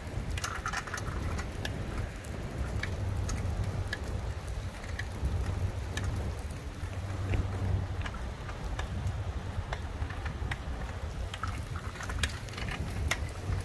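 Strong wind buffeting the microphone, a low gusting rumble, with scattered faint ticks and clicks.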